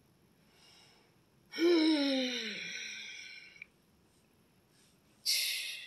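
A person's voice drawn out in one long, wordless sound that slides down in pitch for about two seconds. Near the end comes a short, breathy hiss of an exhale.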